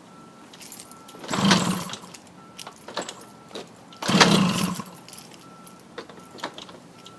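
Tomos moped's two-stroke engine being cranked over in two start attempts, each lasting under a second, a little over a second in and about four seconds in; it turns over but does not catch and run.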